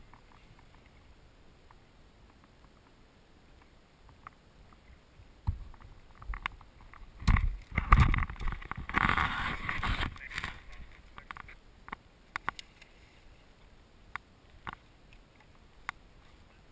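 Kayak being paddled on calm sea: quiet water with scattered light clicks, and for a few seconds in the middle a run of splashing and dull knocks of the paddle against the plastic hull.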